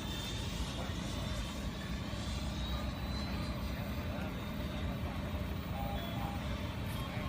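Electric ducted fan of a radio-controlled F-16 jet model (FreeWing 1450KV fan) flying: a faint high whine that slowly drifts in pitch over a steady low rumble.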